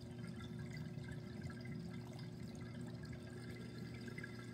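Aquarium tank's circulating water trickling and splashing steadily, over a low, even hum.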